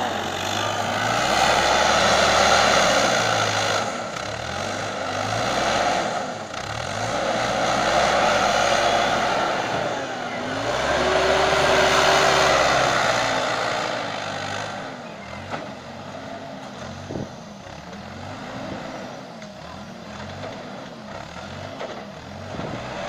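Bobcat TL470 telehandler's diesel engine revving up and down in repeated swells as it works the boom and manoeuvres while loading manure. The engine note rises and falls, and it runs quieter in the second half with a few light knocks.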